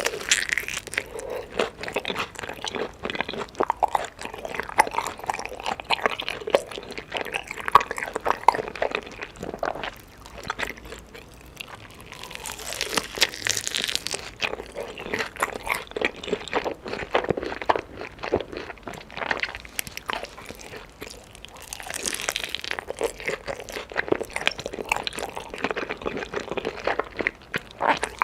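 Close-miked chewing and biting of chicken, a dense run of crackly chewing noises, with three spells of sharper, brighter bites near the start, about midway and about three-quarters through.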